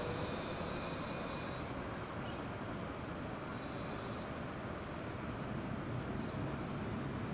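Electric tram pulling away and receding: its steady high-pitched motor tones fade out within the first two seconds, leaving a steady low background hum, broken by a few short high chirps.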